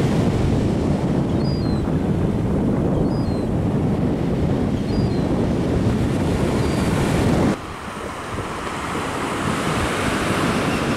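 Surf washing on a sandy beach, with wind buffeting the microphone. A faint, short, high bird call sounds four times, a little under two seconds apart. The sound drops suddenly about three-quarters of the way through to quieter surf and wind.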